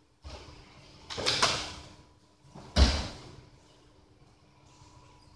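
Bodies and cotton gis during an aikido throw: a rough, rushing swish with a thud about a second in, then a sharp, heavy thud near three seconds as the attacker lands on the foam mats.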